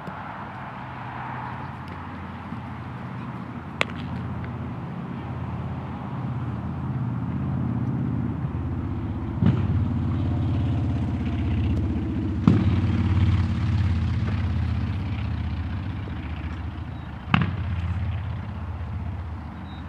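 Four sharp cracks of a baseball being hit during infield fielding practice, heard over a steady low engine rumble that grows louder through the middle and then eases off.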